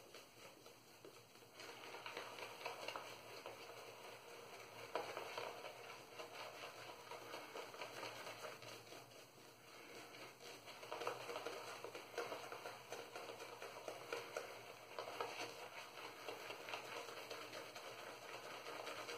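A boar-bristle shaving brush face-lathering shaving soap: the bristles swish and crackle wetly through thick lather on the skin. It starts about a second and a half in, eases off briefly in the middle, then picks up again.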